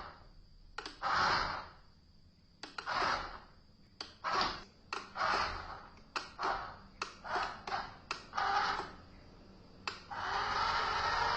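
Small electric motor of a toy remote-control excavator whirring in short spurts, each starting with a click, about a dozen times, then running steadily near the end.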